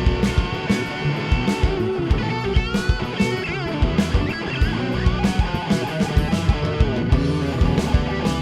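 Rock band playing an instrumental break: electric guitar over a steady drum beat, with bent, gliding notes a few seconds in.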